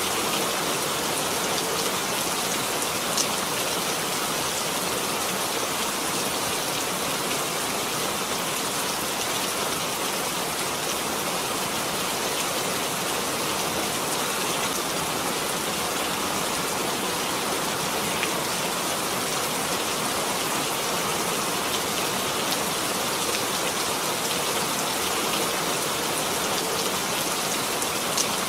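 Steady rain falling, an even hiss with a few louder individual drop ticks, one a few seconds in and another near the end.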